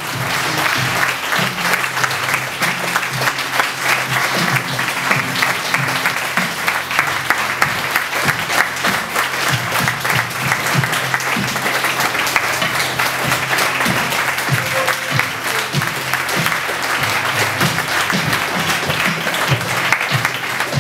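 Theatre audience applauding at the curtain call, with music playing underneath.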